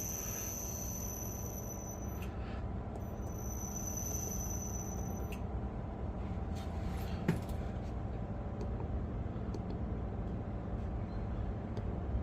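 Reaper 2x72 belt grinder's motor running on its newly installed VFD, a steady hum with a high steady whine over it for the first few seconds that breaks off briefly about two seconds in and stops about five seconds in. A single sharp click about seven seconds in.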